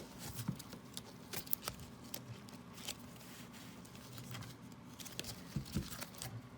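Rigid plastic top loaders being worked open by hand: scattered light clicks, taps and scrapes of plastic.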